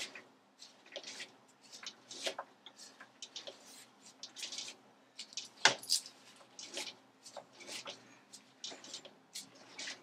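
Irregular metallic clicks, clinks and scraping as a Boxford lathe's chuck is turned by hand with a bar to drive a tap into a hole, the motor not running. One sharp metal knock comes a little past halfway.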